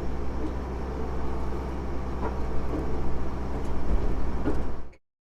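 Case IH 7120 tractor's diesel engine running steadily, with light knocks and rattles over it. The sound cuts off suddenly near the end.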